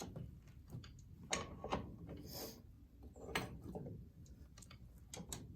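Faint scattered clunks, clicks and scrapes of a heavy Rumely 6A cylinder head being worked up its studs by hand, with a few sharper knocks.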